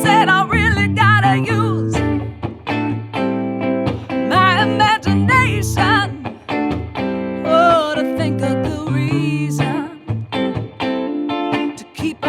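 Soul song with guitar chords over steady low notes, and a lead melody line wavering with vibrato above them.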